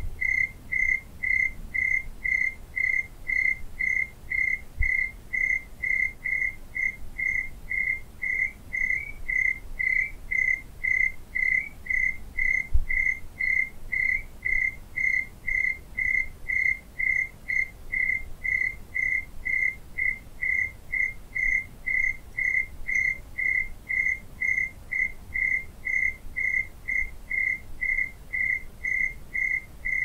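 Cricket chirping steadily at night, a regular train of short single-pitched chirps at about two a second.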